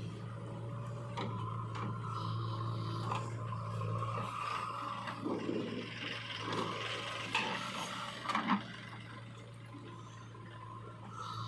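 Irregular scraping and rubbing of a digger bucket working in mud, with a few sharp clicks near the end, over a steady low hum.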